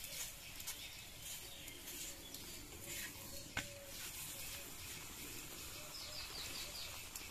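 Faint sizzling of a paratha frying in oil on a hot iron tawa as a metal spatula presses it, with one sharp tap about halfway through. Birds chirp in the background, with a quick run of five high chirps near the end.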